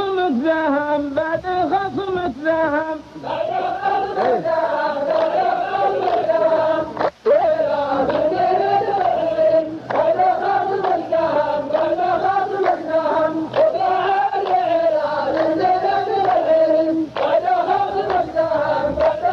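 A chorus of men chanting a verse together to a slow, wavering qalta melody, the sung repetition of a poet's line in a Saudi qalta poetry duel. The singing is continuous, with one brief break about seven seconds in.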